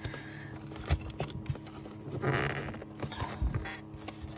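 Fingers picking and scratching at a sealed cardboard box and its sticky tape: scattered clicks and scrapes, with a longer rasp a little over two seconds in, while the tape resists opening.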